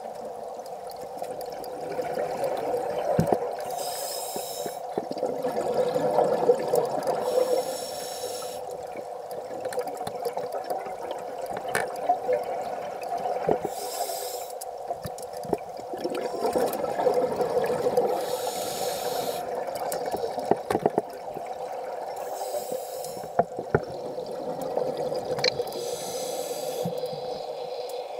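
Scuba diver breathing through a regulator underwater. Each inhale is a short hiss, each exhale a longer stretch of bubbling, with about one breath every four to five seconds.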